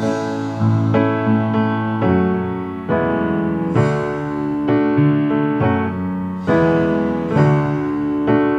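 Piano playing a slow passage of sustained chords, a new chord struck about every second.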